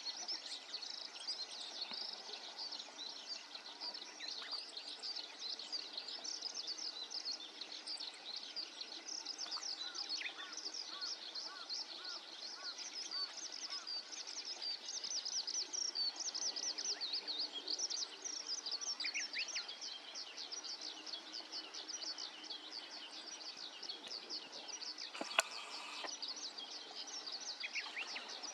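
Many small birds chirping densely and without a break, high-pitched short calls over a steady background hiss, with one sharp click about 25 seconds in.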